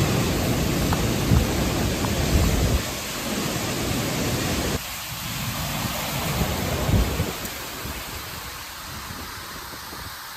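Hurricane wind gusts buffeting the microphone with a low rumble over the hiss of heavy, wind-driven rain. About five seconds in the rumble drops off suddenly to rain and lighter wind, swells once more around seven seconds, then eases.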